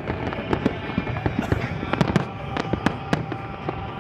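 Fireworks display: a rapid, irregular string of bangs and cracks from bursting shells.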